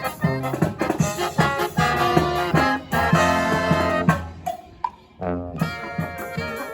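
Brass marching band playing a jazzy number with trumpets, trombones and saxophones over drums keeping a steady beat. About four seconds in the band breaks off briefly, then comes back in more softly.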